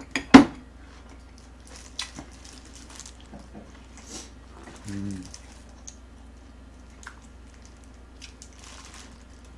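Close-up eating sounds: a spoon clicking sharply against a ceramic rice bowl twice near the start, then soft chewing, squishy food sounds and light utensil clicks, with a brief hum from the eater about five seconds in.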